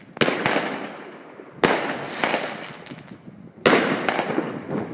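Bonfireworks "Miracle" 16-shot fireworks cake firing three shots about two seconds apart. Each shot is a sharp bang, then a second pop a fraction of a second later and a fading hiss.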